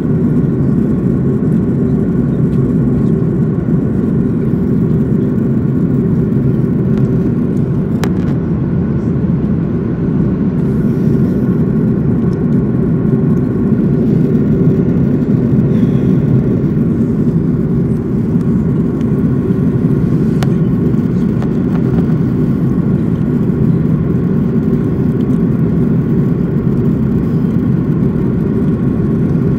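Steady drone of an Airbus A330 in flight, heard from inside the passenger cabin: deep engine and airflow noise with a few faint steady tones above it. Two faint clicks sound, about 8 and 20 seconds in.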